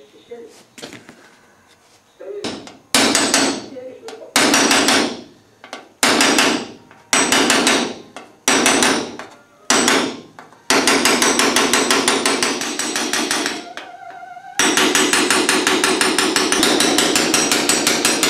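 Hammer blows on a metal punch held against copper sheet, each blow ringing. At first there are single strikes every second or so. From about ten seconds in they give way to fast, continuous runs of light taps, with a short break partway through.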